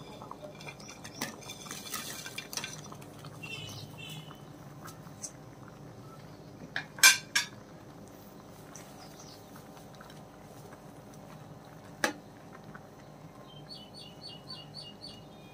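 Metal spatula and dishes clinking and scraping against an aluminium cooking pot as dry noodles are added to boiling broth and stirred. There are light scrapes and rustles at first, then a few sharp clinks: the loudest about seven seconds in and another about twelve seconds in.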